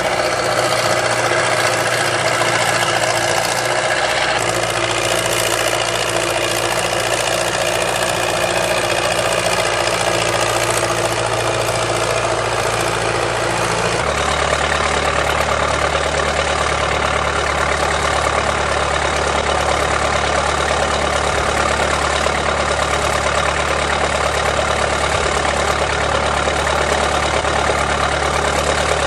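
Backhoe engine running steadily, with an abrupt shift in its low drone about halfway through.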